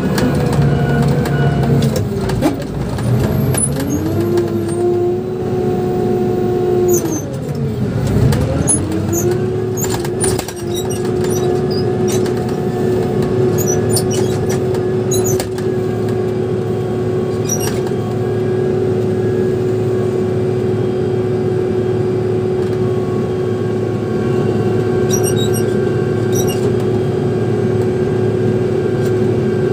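Motor grader's diesel engine running, heard from inside the cab, with a steady whine over the engine note. The revs drop and climb back twice in the first ten seconds, then hold steady, with a few light clicks and rattles.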